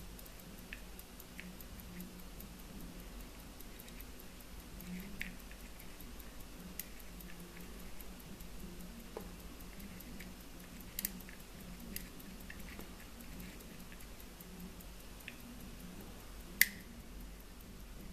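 Invicta quarter-repeater pocket watch ticking: a faint, fast, even tick, with a few louder clicks from the watch being handled and one sharp click near the end, over a low steady hum.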